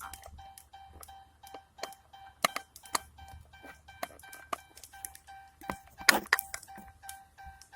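A repeating electronic warning chime at one steady pitch, over irregular sharp clicks and knocks of plastic parts being handled as the ignition switch is fitted back and plugged in. A louder burst of clatter comes about six seconds in.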